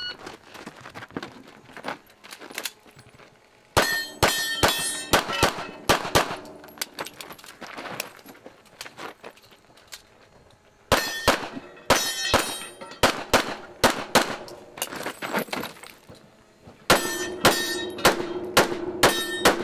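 Handgun shots fired in three fast strings with pauses between, many of them followed by the ringing clang of hit steel targets.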